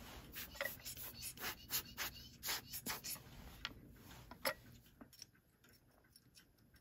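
A hand-turned burnisher (polishing broach) rubbing inside a clock movement's pivot hole, twisted back and forth in short scraping strokes. The strokes thin out after about four and a half seconds.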